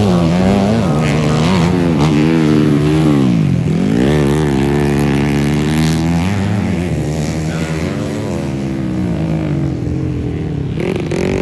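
Dirt bike engine revving hard on a motocross track, its pitch climbing and falling over and over as the throttle is opened and closed, with one deep drop about four seconds in before it winds back up.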